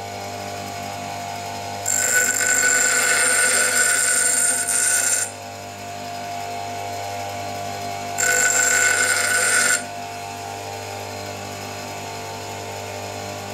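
Metabo DS 150 bench grinder running with a steady hum, while a high-speed steel end mill is pressed to the wheel twice: a loud grinding hiss from about two to five seconds in, and a shorter one around eight to ten seconds, as a radius is ground onto the cutting edge.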